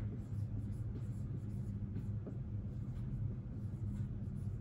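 Dry-erase marker scratching across a whiteboard as words are written out by hand, over a steady low hum.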